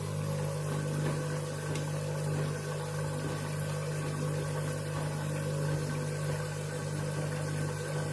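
Candy washing machine running with a steady motor hum, which starts just after the water fill and holds at an even pitch.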